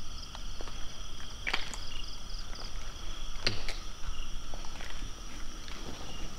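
Crickets and other night insects trilling steadily at several high pitches, some in quick pulses, with footsteps and scuffs on the ground. A sharper scuff comes about three and a half seconds in.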